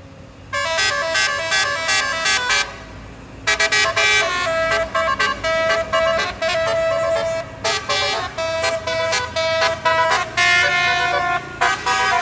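Multi-tone Basuri-type 'telolet' bus horn playing a quick melody of short changing notes. It starts about half a second in, breaks off briefly about three seconds in, then plays on.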